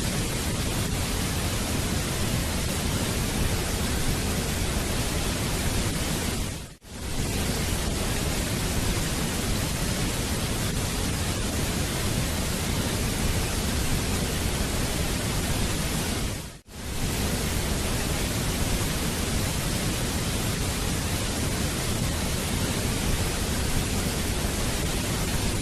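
Waterfall water rushing as a steady, even hiss, briefly cutting out about 7 seconds in and again about 17 seconds in.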